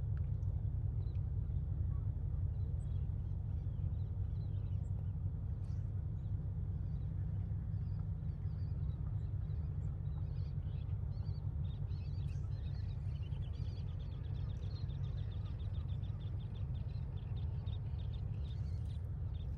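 Steady low rumble with scattered short bird chirps above it, and a rapid trill of high clicking chirps over the last six seconds or so.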